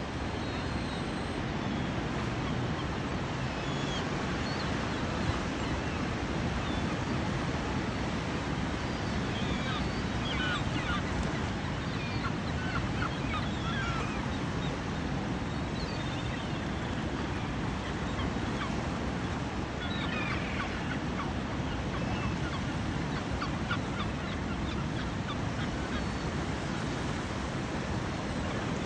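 Steady rush of sea surf, with short bird calls breaking in now and then, in flurries about a third of the way through and again about two-thirds through.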